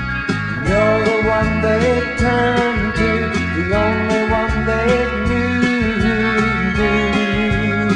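Country music: an instrumental passage with guitars, sliding notes and a steady drum beat.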